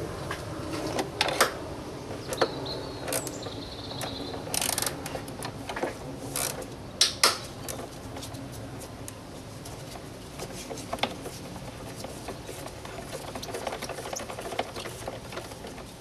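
An 8 mm socket wrench loosening a small bolt in a car engine bay: irregular clicks and knocks of the tool against metal and plastic.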